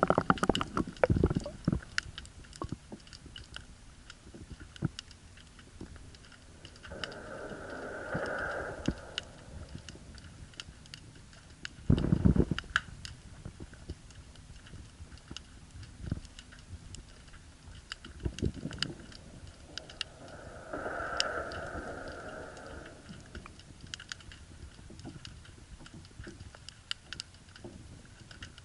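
Underwater sound picked up by an action camera in its waterproof housing: scattered clicks and crackles, a heavy knock about twelve seconds in, and two brief swells of rushing noise, each lasting about two seconds.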